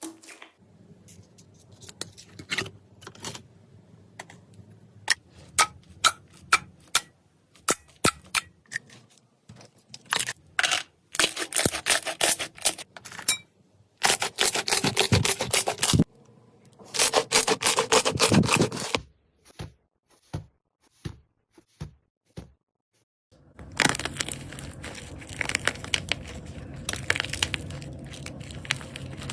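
Slime being handled by hand: scattered sharp clicks and pops, then several stretches of a few seconds each of dense crackling, and a steady crinkling and crackling from about 23 seconds in.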